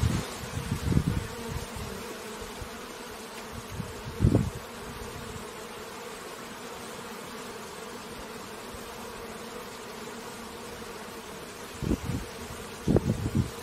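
Bees buzzing at a beehive: a steady, many-voiced hum. Short louder low gusts come at the start, about four seconds in, and several near the end.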